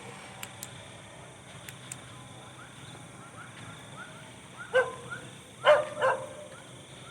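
A dog barking three times, once and then twice close together, about two-thirds of the way through, over a faint repeating chirp in the background.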